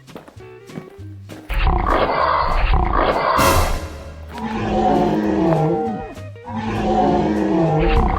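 Background music with a loud animal roar sound effect laid over it, starting about a second and a half in and coming in three long bursts.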